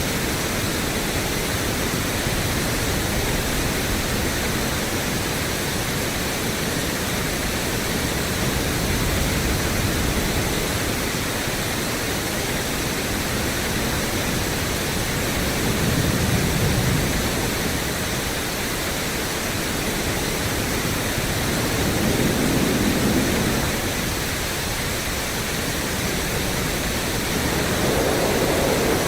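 Pink noise played through a Yamaha EQ-70 ten-band graphic equalizer: a steady, even hiss. Every six seconds or so it swells briefly, and each swell sits a little higher in pitch than the last, moving from deep bass up into the lower midrange.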